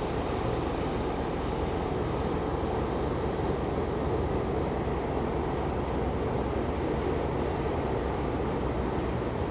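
Cargo ship passing close by: a steady low rumble from its engine and propeller, with the water churning at the stern.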